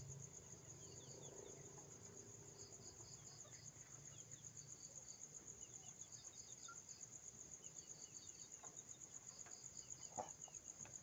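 Faint night insects, crickets, chirping: one continuous high, rapidly pulsing trill, with a second insect's chirps coming and going in short runs.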